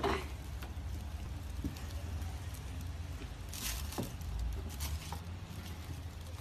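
Small clicks and a brief rustle, about three and a half seconds in, as a golden retriever puppy scrambles out of a cardboard gift box lined with tissue paper onto tiles, over a steady low rumble.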